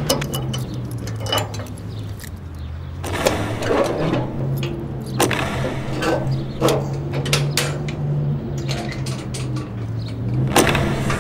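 A low steady hum with irregular knocks and rattles over it, about eight of them scattered through.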